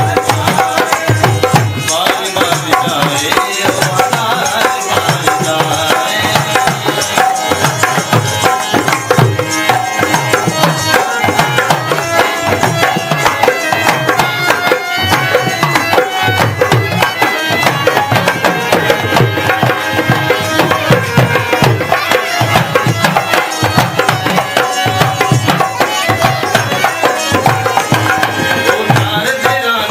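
Devotional bhajan music, with a tabla-like hand drum keeping a steady beat under a melody.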